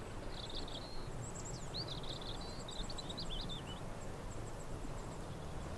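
A small songbird twittering and chirping in short high phrases over a low, steady background rumble.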